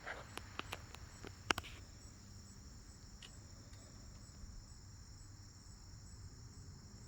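Steady chorus of crickets chirring, with a few sharp clicks and taps in the first two seconds, the loudest about a second and a half in.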